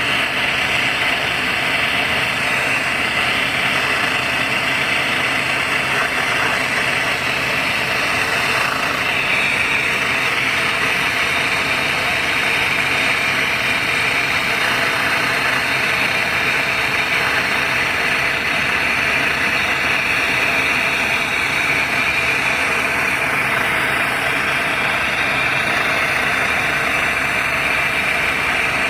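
Brazing torch flame burning with a steady hiss on copper pipe, unbroken throughout.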